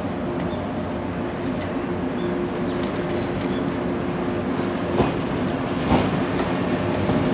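JR 189 series electric train running along the tracks: a steady hum over the rumble of the cars, growing a little louder. Two sharp clacks of the wheels come about five and six seconds in, a second apart.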